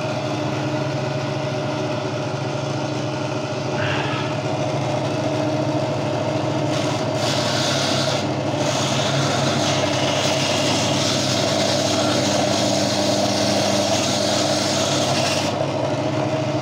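Gryphon diamond bandsaw running with a steady motor hum. From about seven seconds in until shortly before the end, the diamond blade grinds through the stony skeleton of a Lobophyllia coral frag, adding a gritty hiss over the hum.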